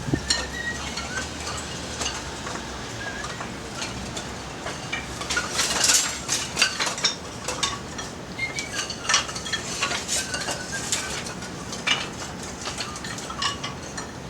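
Wood fire crackling with many sharp pops and snaps, a dense cluster of them about six seconds in, burning slightly damp firewood and branches in a Picogrill 398 fire stand.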